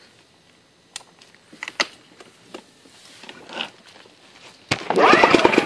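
A few light clicks from the controls of a Yamaha EF1000iS inverter generator. About four and a half seconds in, its recoil starter is pulled and the engine cranks with a rapid chugging.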